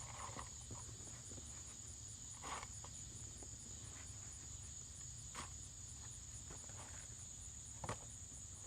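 Short scrapes and knocks of a garden hand tool digging through soil in a potato bucket, a few seconds apart, over a steady high trill of insects pulsing about four times a second.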